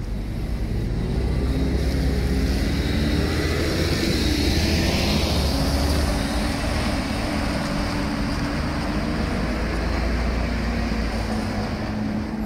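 A city bus driving past on wet cobblestones: its engine running, with tyre hiss on the wet road swelling to a peak about five seconds in, over a steady low traffic rumble.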